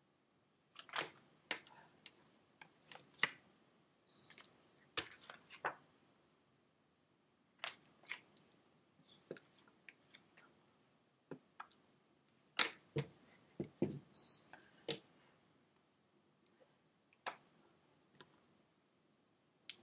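Faint, irregular small clicks and taps from hands moving while signing and handling a slip of paper.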